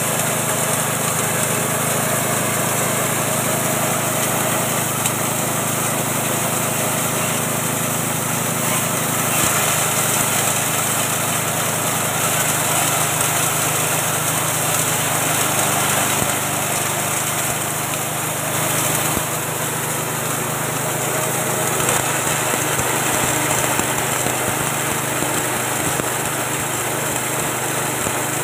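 Small 6.5 hp single-cylinder engine running steadily under load, driving a feed chopper and grinding mill, with a dense steady hiss of material being ground into fine meal.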